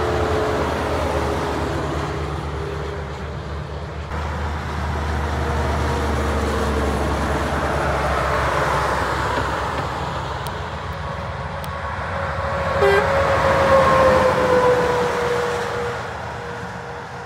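Heavy semi-trailer trucks passing on a motorway: a steady low engine rumble under tyre and road noise. A held tone slides slowly down in pitch as one passes, and the noise swells to its loudest about two-thirds of the way through, then fades.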